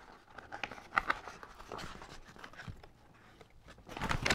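Paper pages of a coloring and activity book rustling and flapping as they are leafed through, with a louder rustle about a second in and another near the end.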